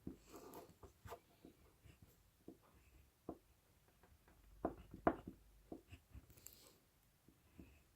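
Crayon scratching on paper as letters are written, with scattered light taps and a few sharper knocks about five seconds in.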